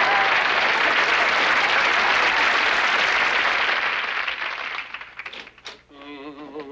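Studio audience applauding at the end of a scene, loud and steady, then dying away about four to five seconds in. Near the end a short wavering melody begins.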